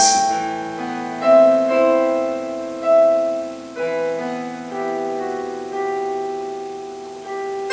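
A slow solo piano passage: single notes and chords are struck about once a second, and each is left ringing as it fades.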